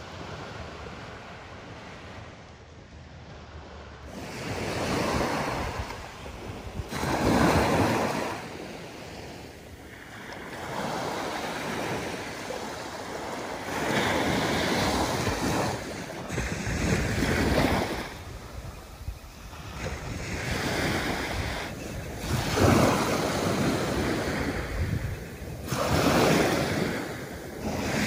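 Small waves breaking and washing up a sand-and-pebble beach, surging in every few seconds, with wind buffeting the microphone.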